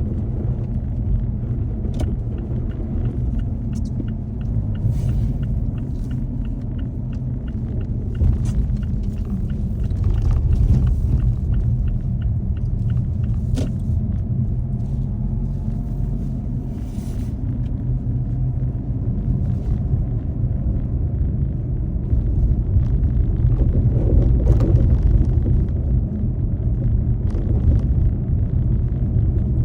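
Car driving, a steady low rumble of engine and road noise picked up by a dashcam, with a few scattered light clicks and knocks.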